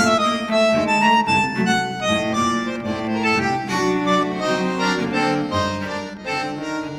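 Background music: a cheerful accordion-like melody over a steady accompaniment, fading slightly near the end.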